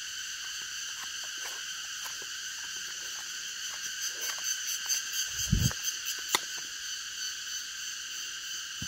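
Steady forest insect chorus: several high, unbroken tones held at once, with a quick rapid pulsing added between about four and six seconds in. Light scattered clicks and a dull thump about five and a half seconds in.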